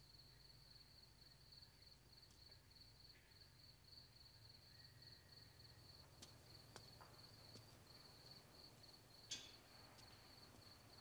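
Faint crickets chirping in a steady pulsing trill, with a few soft clicks, the loudest about nine seconds in.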